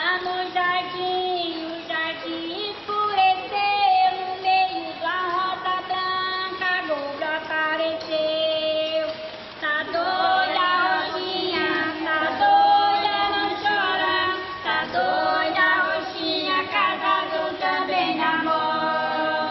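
Women singing a folk song together, with long held notes.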